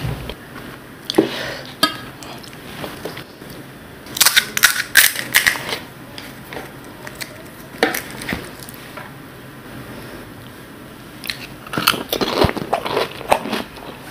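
Crisp fuchka (panipuri) shells crunching as they are bitten and chewed, with a quick run of sharp crackles about four seconds in and another near the end. Softer chewing and handling noise fills the gaps between.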